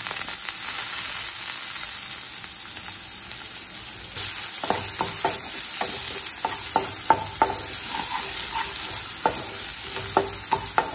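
Sliced onion sizzling in hot oil in a nonstick kadai with tempered dals and curry leaves. From about four seconds in, a spatula scrapes and taps against the pan over and over as the onion is stirred.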